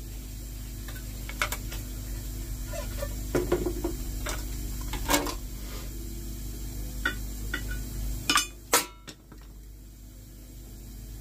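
Hard objects being handled: scattered clinks and knocks over a steady low hum, with the loudest knock near the end leaving a brief ring.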